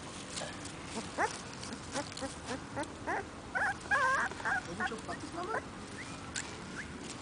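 Two-week-old Siberian husky puppies whimpering in short, high squeaks, coming thickest in the middle.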